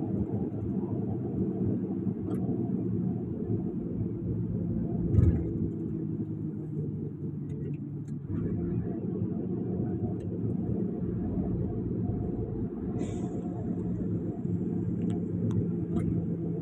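Steady low rumble of a vehicle's engine and tyres heard from inside the cab while driving, with a steady hum, and a single loud knock about five seconds in.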